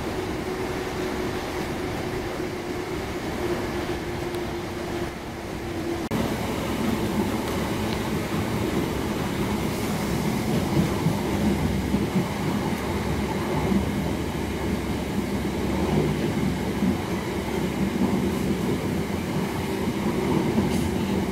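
Class 319 electric multiple unit heard from inside the carriage while under way: steady running noise of the train on the rails with a low steady hum. About six seconds in the sound changes abruptly, becoming louder with a lower hum.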